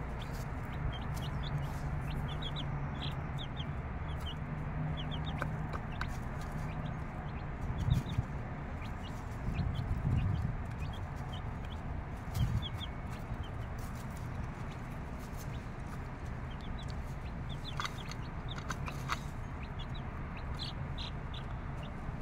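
Mother hen clucking while her six-day-old chicks peep in short, high chirps scattered throughout. A few dull thumps come in the middle.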